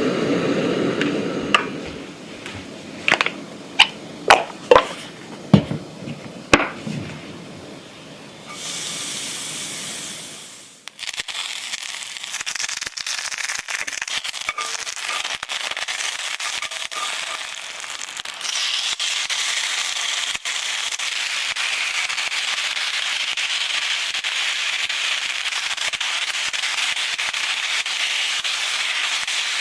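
A few sharp knocks and clicks of utensils, a brief hiss, then food starts sizzling and crackling in a hot pan about eleven seconds in, growing louder about halfway through and running on steadily: kimchi and short arm octopus being stir-fried.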